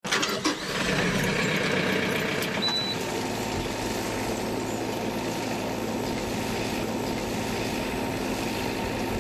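Tractor diesel engine started with the key, with a few sharp clicks as it catches in the first half-second. It then runs steadily at an even speed while the tractor mows with its side-mounted mower.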